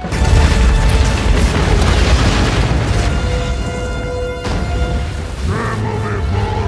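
Cinematic explosion: a sudden, loud blast followed by a deep, rolling rumble of debris, laid over dramatic orchestral score.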